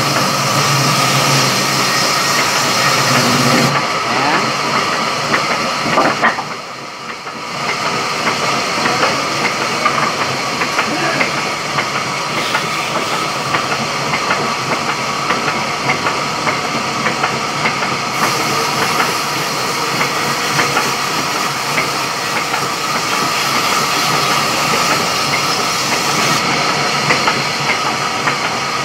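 Sawmill saw running and cutting timber, a loud, dense, steady noise. It drops briefly about six seconds in, then resumes.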